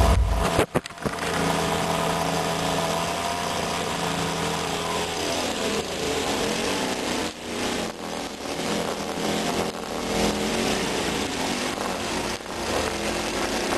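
Gas string trimmer's small engine running continuously, its speed wavering up and down, with a few brief dips.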